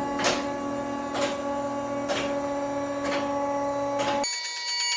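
Electronic synthesized jingle of steady stacked tones with a beat about once a second. Near the end it switches to a higher, buzzy tone.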